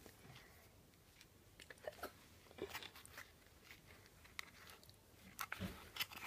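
Faint, scattered rustles and small clicks of hands tying a knot of wool around a craft letter.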